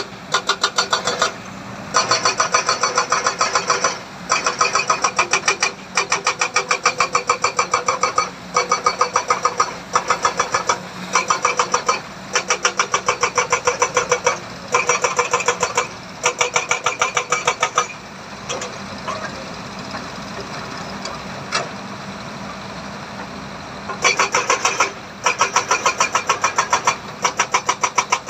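Heavy machinery: repeated bursts of rapid clattering, each about a second and a half long with short breaks between, over a steady engine hum. The clattering stops for several seconds about two-thirds of the way through.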